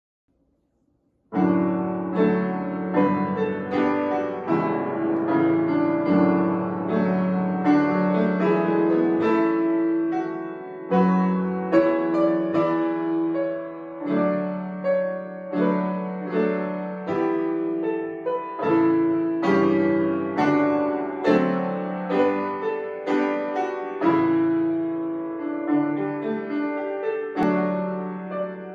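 Solo piano playing a slow piece of chords and melody, starting about a second in and dying away at the end.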